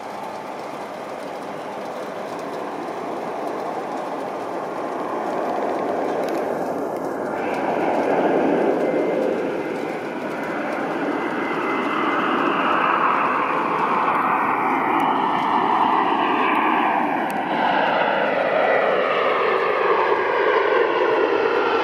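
Jet airliner on landing approach, an Embraer E-Jet with twin CF34 turbofans, growing steadily louder as it nears and descends toward the runway. Several engine whine tones fall slowly in pitch as it passes.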